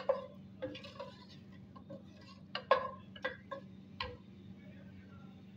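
A wooden spoon knocking and scraping against a steel cooking pot while stirring whole coriander seeds frying in hot oil. The knocks are irregular and sharp, each with a short metallic ring; there are about nine over the first four seconds, the loudest near the middle, and then they stop.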